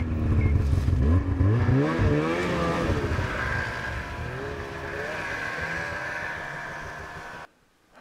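Snowmobile engine revving hard as the sled pulls away through deep powder, its pitch rising and falling with the throttle, then growing fainter as it climbs away. It cuts off suddenly near the end.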